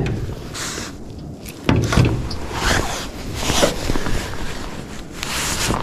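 Cloth rustling and handling noise right at the microphone as a jacket sleeve and hand brush past it, with a dull knock about two seconds in.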